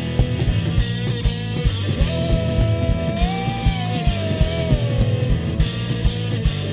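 Rock music: distorted electric guitars and a drum kit with a steady, fast kick-drum beat, a lead guitar line bending in pitch over sustained chords.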